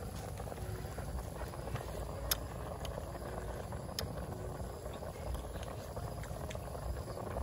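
Soup boiling in a pot over a wood fire: a steady bubbling hiss, with a couple of sharp clicks about two and four seconds in.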